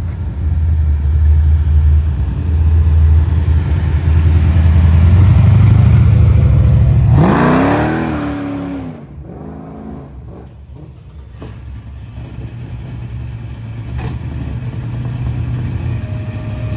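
Car engine running with a loud, low rumble, then revved hard about seven seconds in, its pitch climbing and falling away, before settling to a quieter idle.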